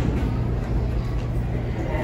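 Subway train running through the station: a steady, loud low rumble.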